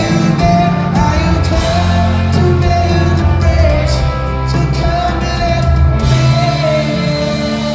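Live rock band playing loud through a hall PA: a male voice singing over electric guitar, violin and drums. The drum hits stop about six seconds in while the music rings on.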